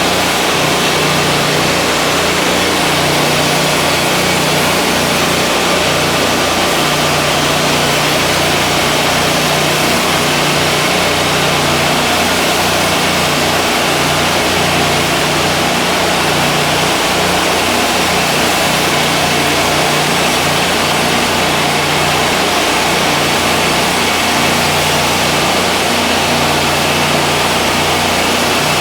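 Wood-Mizer LT40 hydraulic band sawmill running steadily, its engine drone holding one even pitch, with a steady hiss over it.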